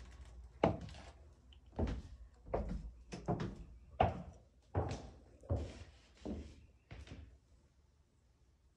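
Footsteps on a hardwood floor: about nine evenly paced knocking steps, fading out near the end.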